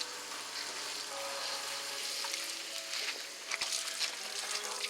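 Water running steadily in a shower, a continuous spray hiss.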